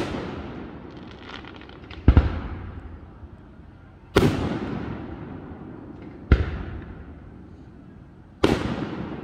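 Aerial firework shells bursting: five sharp bangs about two seconds apart, each trailing off in a long echoing rumble, with a few faint crackles after the first.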